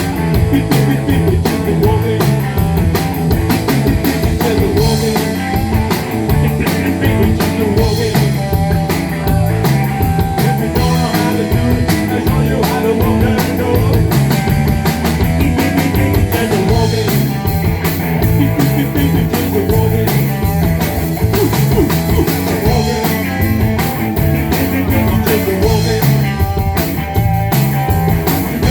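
Rock band playing an instrumental stretch, with guitar and drums keeping a steady beat.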